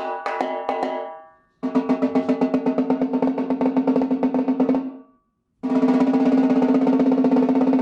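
Rebuilt homemade snare drum played with a ringing pitched tone: a few quick strokes, then an even roll, and after a brief pause a denser, faster roll.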